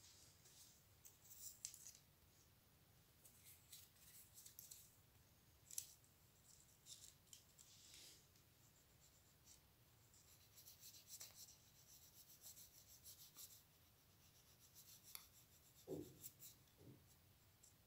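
Faint scratching and rustling of paper card being handled and rubbed, in short irregular scrapes over near silence, with a couple of soft knocks near the end.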